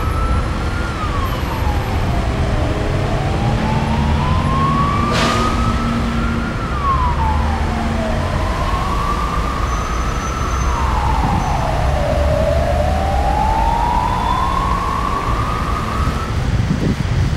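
Emergency vehicle siren wailing, its pitch rising slowly and falling more quickly, over and over, above the low rumble of city traffic. One sharp click about five seconds in.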